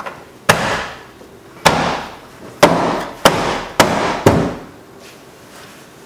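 Honda Civic door trim panel being smacked by hand to seat it onto the door: six sharp smacks over about four seconds, each fading quickly.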